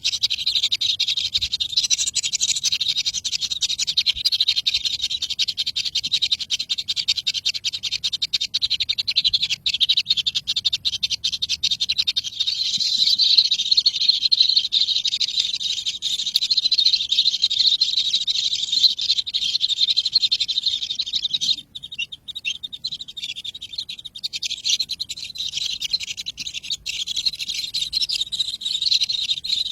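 Baby birds cheeping in a dense, continuous high-pitched chorus of rapid chirps, with a brief drop about two-thirds of the way through.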